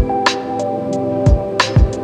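Background music with a beat: sharp drum-like strikes over held chords.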